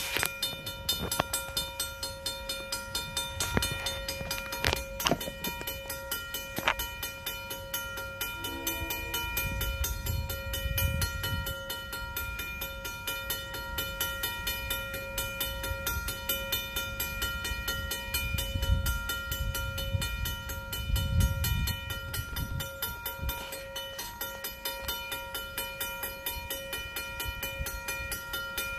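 Safetran mechanical crossing bell ringing, with rapid, evenly spaced strikes and a steady ringing tone, sounding while the crossing lights flash. A low rumble rises and falls twice underneath.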